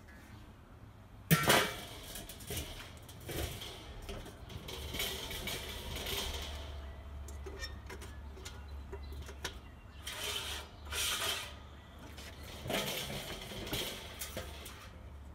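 Weber kettle charcoal grill being handled: a sharp metal clank about a second in, then several spells of metal scraping and rattling.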